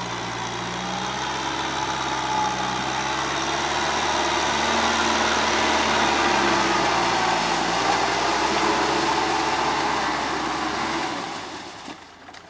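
Kubota M6040SU tractor's diesel engine running steadily under load while it pulls a rotary tiller through wet paddy mud; the engine note shifts a little in pitch and the sound fades away near the end.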